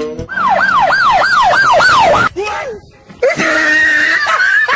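A siren-like wail that rises and falls about three times a second for about two seconds. After a brief break it becomes a long, high, wavering cry held to the end.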